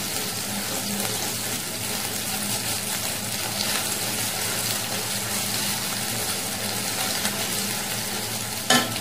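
Onion-cashew paste with ginger-garlic paste sizzling in hot oil and ghee in a nonstick kadai, stirred with a wooden spatula: a steady frying hiss as the masala is fried down. There is a short knock near the end.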